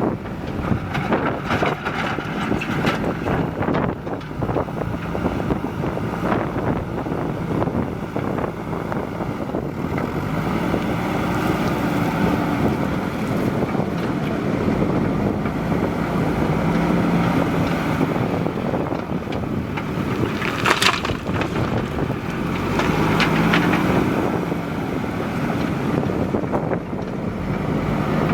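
Diesel engine of a JCB 3DX backhoe loader working, revving up and dropping back several times under load, with wind buffeting the microphone. A short sharp noise stands out about three quarters of the way through.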